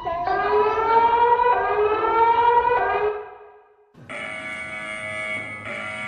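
Electronic emergency-alert siren tones: a wailing tone rising in steps for about three seconds and fading out, then after a short gap a steady, many-toned alarm that restarts about every second and a half.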